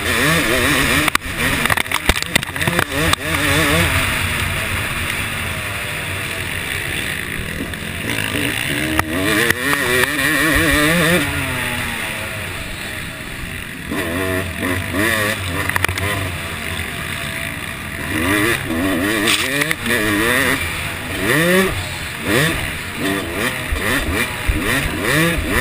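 Yamaha YZ250 two-stroke motocross engine being ridden hard, its pitch rising and falling again and again as the rider works the throttle and gears. A few sharp knocks come in the first few seconds.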